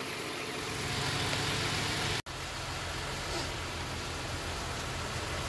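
Toyota Sienna engine idling steadily after a jump start, its alternator charging the battery at 13 to 14 volts. The sound cuts out for an instant about two seconds in.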